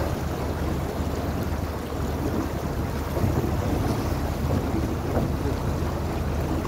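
Small motorboat's engine running steadily with a low rumble as the boat moves through calm water, with water washing along the hull and wind buffeting the microphone.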